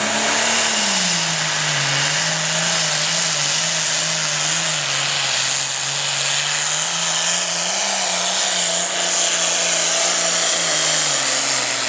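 Modified farm pulling tractor's engine running at steady, moderate revs. The pitch dips slightly about a second in, rises a little around eight seconds, and falls off near the end, over a loud hiss.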